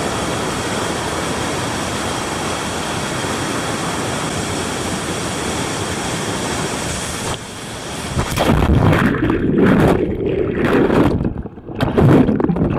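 Steady rush of a nearby waterfall. About seven seconds in it gives way to muffled, uneven sloshing and splashing of water close to the microphone.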